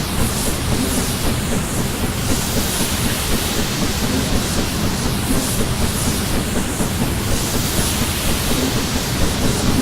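Steam-hauled train under way behind BR Standard Class 7 'Britannia' 4-6-2 No. 70013 Oliver Cromwell: a steady, loud rumble and clatter of the train running on the rails.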